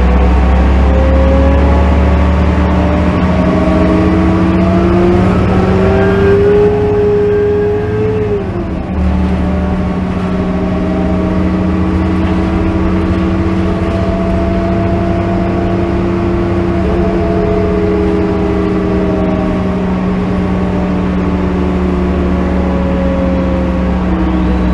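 2005 New Flyer C40LF CNG transit bus heard from inside the cabin while under way: the engine and drivetrain whine rises in pitch as the bus accelerates, falls away sharply with a brief dip in loudness about eight seconds in, then holds a steady drone with slowly drifting pitch while cruising.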